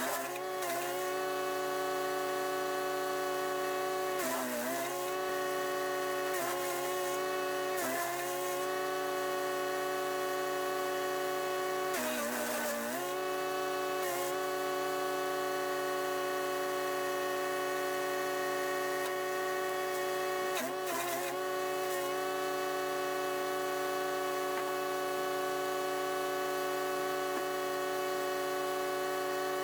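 Chipease D1500E wood chipper's 420cc four-stroke engine running steadily at speed. About five times it briefly bogs down in pitch with a rush of chipping noise as branches go through the blades, the longest bout near the middle.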